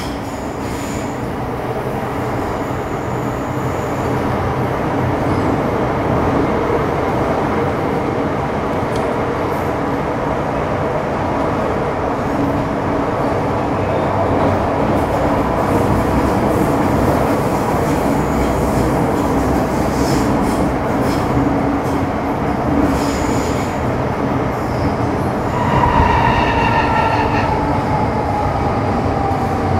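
MTR Metro Cammell M-Train (CT-stock) electric multiple unit with GEC GTO chopper control running, heard from inside the car: a loud, steady rumble of wheels and running gear. About 26 seconds in, a whine with several tones starts and falls steadily in pitch.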